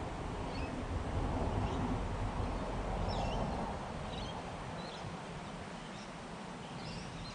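Birds chirping in short, scattered calls over a rushing background noise with low rumble that eases off about four seconds in.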